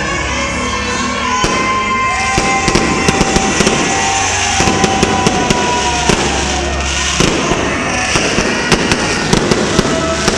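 Fireworks going off: sharp cracks and pops in quick, irregular succession from about a second and a half in, over loud music.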